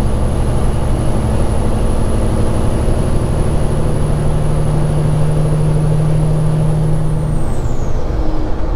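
Straight-piped Cat 3406E diesel in a Kenworth W900 running steadily under load. Near the end, the engine note drops and a high whine slides down in pitch.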